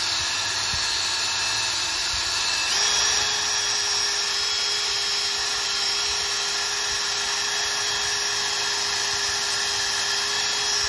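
Cordless drill spinning a wire wheel brush against the steel face of a Mazda RX8 front wheel bearing hub, scrubbing off rust and grime. A steady whine that steps up in pitch about three seconds in.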